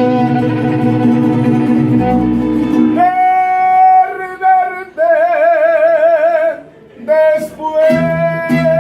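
Live Mexican band music: guitars strum chords over a bass line, then a long held melody note wavers with vibrato for a few seconds. After a short break the strumming comes back under another held note.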